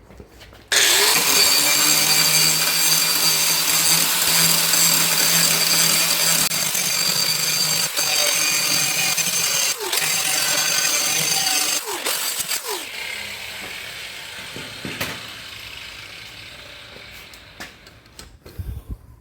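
Angle grinder grinding down a rough weld bead on steel: it starts abruptly under load with a loud, high, hissing whine, and about twelve seconds in it is switched off and winds down over several seconds.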